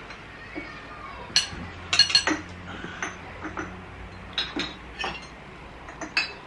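A metal fork clinking against a frying pan and a ceramic plate while noodles are served, in a series of sharp, irregular clinks. The loudest cluster comes about two seconds in.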